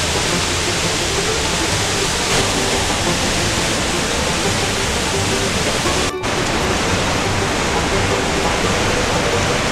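Loud, steady rush of fast river water churning through a dam's outflow and over rapids, with a brief break about six seconds in. Music runs faintly underneath.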